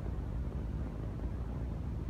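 Steady low rumble of wind on the microphone.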